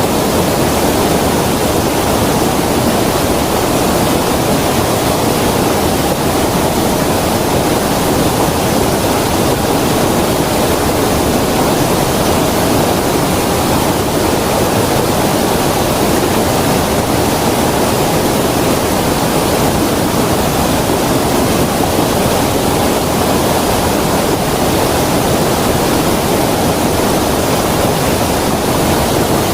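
Creek water rushing steadily over its bed, a continuous even roar of flowing water.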